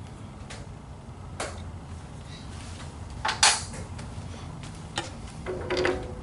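Scattered clicks and knocks from hand-setting a metalwork lathe, with parts and tools being handled and clamped, the loudest clack about halfway through. The lathe is not running.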